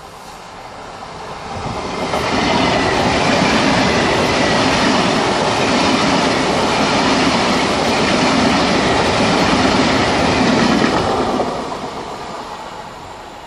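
PKP Intercity Pendolino (ED250) high-speed electric trainset passing close at speed. The noise builds over about two seconds, holds loud and steady for about eight seconds while the train goes by, then fades away.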